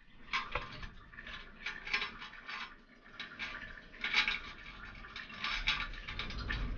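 Toilet tank-to-bowl bolts, washers and nuts clinking and scraping against the porcelain as they are fitted and hand-tightened: a run of irregular small metallic clicks.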